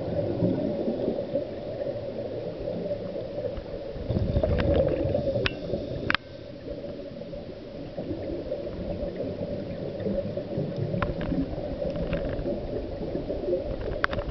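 Muffled underwater noise of a scuba dive, with a louder burst of gurgling from the diver's exhaled regulator bubbles about four seconds in, and a few sharp clicks around the middle and near the end.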